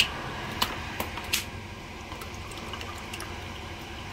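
Water poured from a plastic water bottle into a glass of yogurt to make lassi, a steady pouring and filling sound. A few sharp clicks come in the first second and a half.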